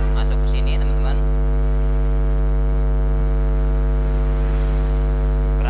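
Loud, steady electrical mains hum with a dense buzz of overtones.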